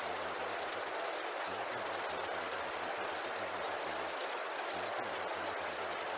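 A steady rushing noise that holds even throughout, with no breaks or changes.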